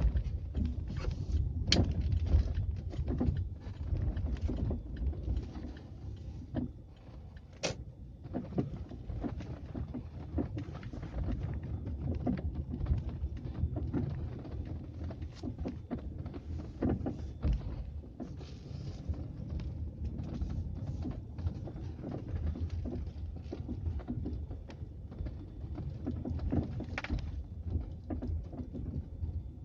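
Volkswagen Polo Sedan steering rack knocking: many short, irregular knocks over a steady low rumble, the sign of a worn rack bushing.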